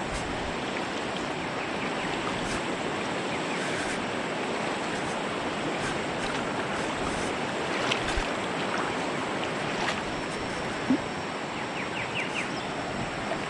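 Steady rush of flowing stream water, with a few faint short clicks over it.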